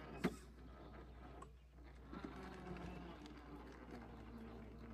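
Electric motor of an RC scale rock crawler whining faintly as the truck creeps over rock, with light clicks and one sharp knock about a quarter second in.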